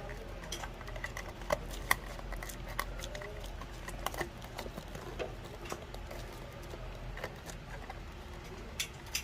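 Irregular light clicks and taps from hands handling a wall switch, screws and small hardware, a few with a short metallic ring, over a steady low hum.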